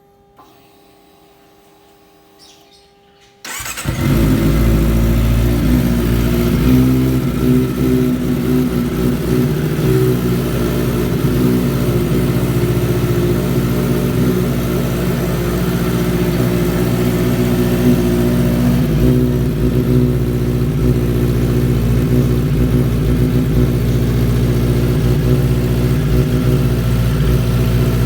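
Kawasaki ZX-25R's inline-four engine, breathing through an R9 Austin aftermarket exhaust, starts suddenly about three and a half seconds in and then idles steadily.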